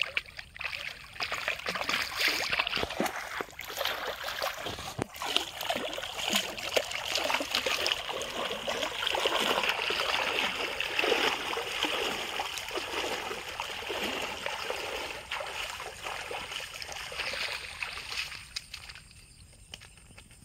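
Shallow river water splashing and sloshing as a man wades through it, towing a hooked rohu fish that thrashes at the surface. The splashing dies down near the end.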